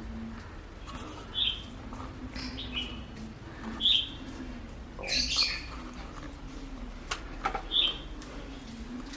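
Birds calling: several short high chirps and one louder, harsher call about five seconds in, over a faint steady low hum.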